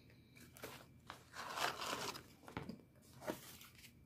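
Faint eating sounds: crunching and the crinkle of a food wrapper, a rustle lasting about a second in the middle with a few short clicks around it.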